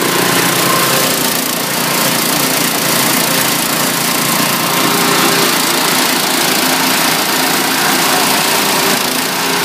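KingStar single-cylinder petrol engine running flat out, driving a multi-purpose shredder as plant material is fed through it. A loud, steady machine noise that holds level the whole time.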